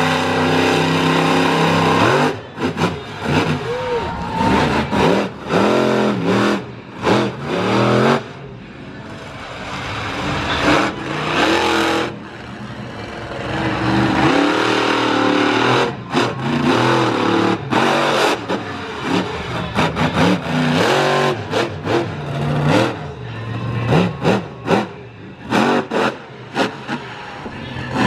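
Monster truck engine revving hard again and again, its pitch surging up and falling back with sharp drops in level between blasts.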